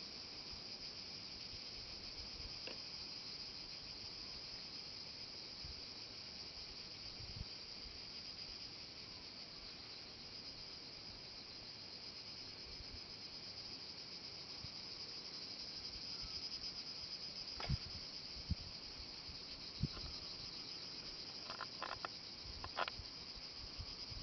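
Chorus of cicadas: a steady, high buzz with a fine rapid pulse. Several short sharp clicks come in the last third.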